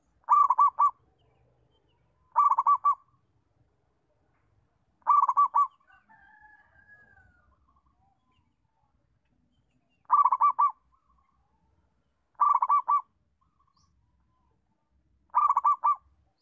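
Zebra dove (perkutut) cooing: six short phrases of quick staccato coos, each about half a second long, coming every two to three seconds with a longer pause in the middle. A faint, softer bird call sounds in that pause.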